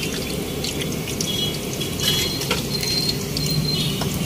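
Hand mixing dry spiced gram flour in an aluminium pot, working in a little hot oil just added. It is heard over a steady hiss, with a few light knocks against the pot.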